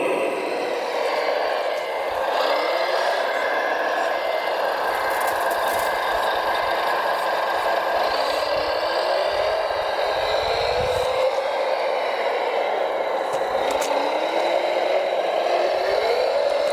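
Radio-controlled model truck's electric drivetrain whining steadily, its pitch rising each time the truck speeds up, about four times.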